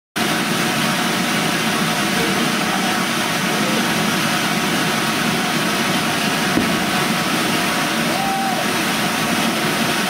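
Ground fountain firework hissing steadily as it throws up a column of sparks, with one small pop about two-thirds of the way through.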